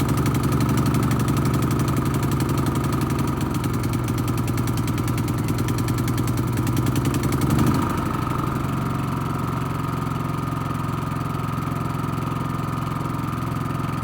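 Champion 4500-watt dual-fuel inverter generator running steadily with no load, its engine note dropping slightly and settling a little past halfway.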